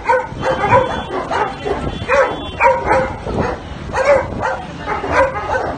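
A dog barking over and over in short barks, about two a second.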